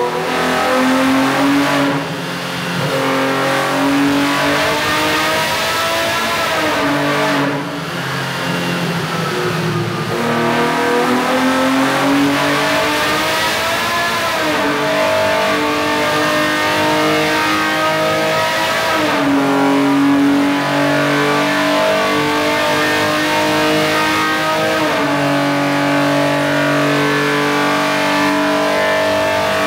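Air-cooled four-valve racing engine with 3D-printed cylinder heads running on an engine dyno through a simulated race lap. The revs climb and fall, with brief dips about 2 and 7 seconds in. In the second half the engine holds long, steady, high-rev stretches, and its pitch steps down twice.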